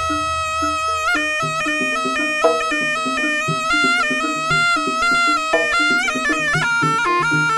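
Jaranan gamelan music led by a slompret, the Javanese double-reed shawm, playing a bright, reedy melody over a stepping accompaniment of shorter lower notes and a regular pulse of short low notes. A deep low note dies away in the first second.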